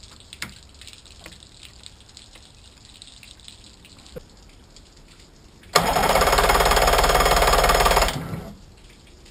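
Yamaha 90 outboard cranked over by its electric starter for about two and a half seconds, a loud fast pulsing that starts abruptly and dies away, after faint clicks from the fuel line fitting being handled.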